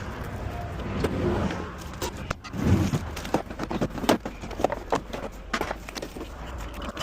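Tools and equipment being handled to start a roadside spare tire change: a run of sharp clicks and clanks with a heavier thump about three seconds in, over a steady low vehicle hum.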